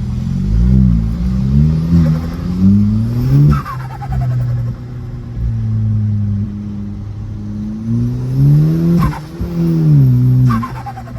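A VW Golf's turbocharged engine revs up twice with a stretch of steady idle in between. Each time the throttle is released, the revs fall away with a falling turbo whistle and flutter.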